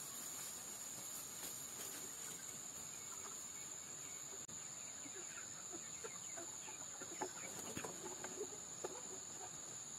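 Hens clucking in short calls as they crowd in to feed, busier in the second half, over a steady high insect drone.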